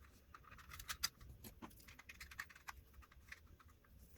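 Faint, scattered clicks and scratches of a plastic remote control case being handled and worked open by hand.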